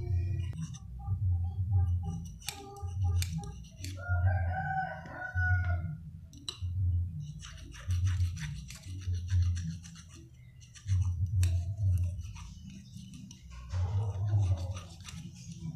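Hand file scraping back and forth over the point of a homemade spring-steel eel hook, sharpening it, in strokes about once a second with a short pause near the middle. A rooster crows in the background about four seconds in.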